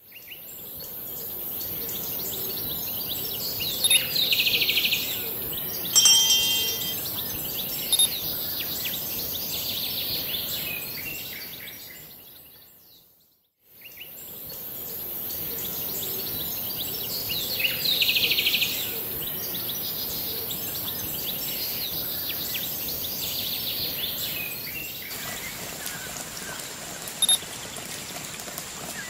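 Nature-ambience soundtrack of birds chirping and calling over a steady high hiss, with a bell-like chime about six seconds in. It fades out about halfway through and the same passage then plays again.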